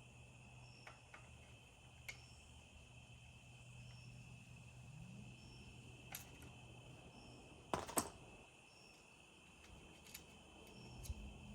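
Faint, steady insect chirring with a few sharp clicks and knocks from hardware and tools being handled; the loudest is a quick pair of clicks about eight seconds in.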